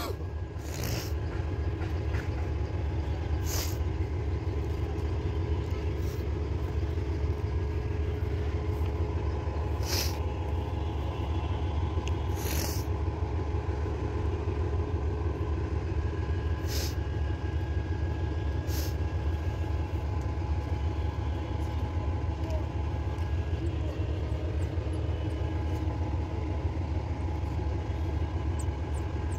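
Steady motor drone, unchanging in pitch, with a few short sharp clicks now and then.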